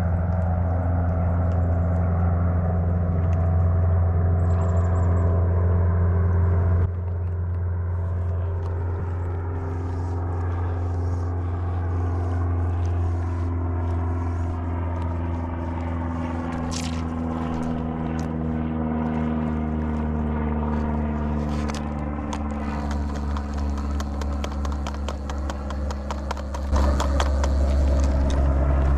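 An engine running steadily with a low hum whose pitch drifts slowly up and down. The sound changes abruptly about seven seconds in and again near the end.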